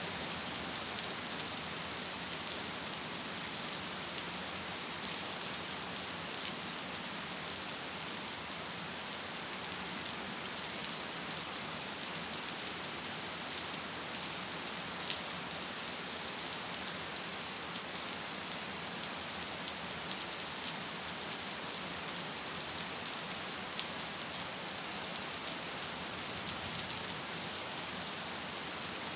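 Gentle rain falling steadily: an even hiss scattered with many faint raindrop ticks.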